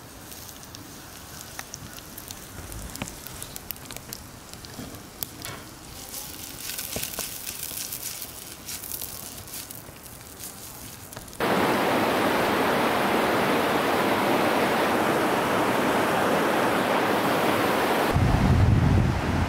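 Campfire wood crackling and popping in a fire ring, many sharp small cracks over a soft hiss. About eleven seconds in it cuts suddenly to the loud, steady rush of river rapids, with wind buffeting the microphone near the end.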